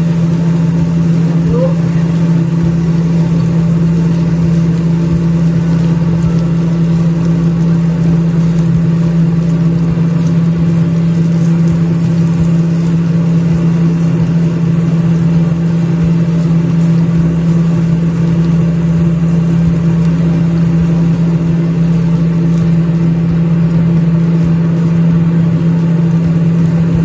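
A loud, steady mechanical hum on one low tone, with green beans and minced beef being stirred in a non-stick wok with a spatula.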